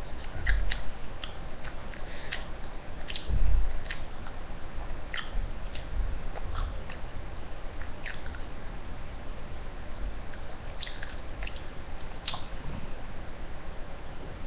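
A child chewing chicken close to the microphone, with scattered wet mouth clicks and smacks. Two dull low thumps come about half a second and three and a half seconds in.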